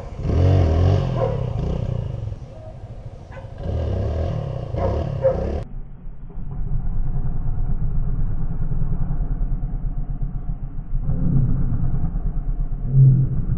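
Dirt bike engine revving in throttle bursts during wheelie practice, its pitch rising and falling twice in the first six seconds. It then settles into a steadier, lower drone for several seconds before another burst of throttle near the end as the front wheel comes up.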